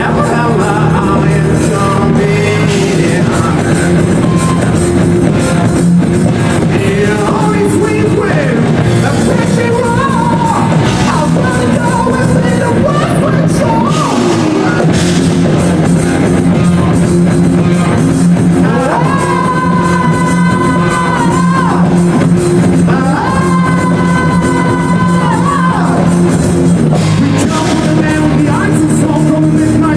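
Loud rock music with a sung vocal and heavy guitars and drums.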